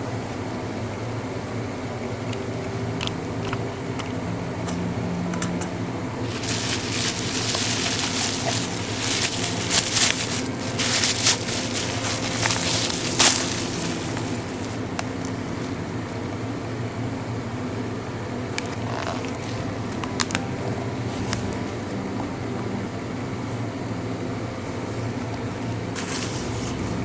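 Product packaging being handled and unwrapped: rustling and crinkling with sharp clicks for about eight seconds, starting about six seconds in, then a few scattered clicks and a short rustle near the end. A steady low hum runs underneath.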